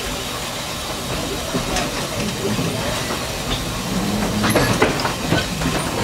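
Riding in a small steam-hauled train: the steady rumble and hiss of the moving carriage, with wheel clicks over the rails and a cluster of sharper clicks and knocks about four and a half seconds in.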